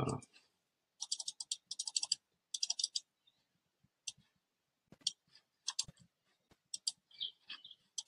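Computer keyboard typing: quick runs of key clicks in the first few seconds, then scattered single clicks.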